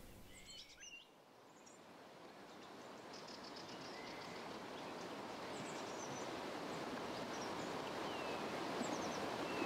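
Outdoor nature ambience: scattered small-bird chirps over a steady rushing noise that fades in from about a second in and slowly swells.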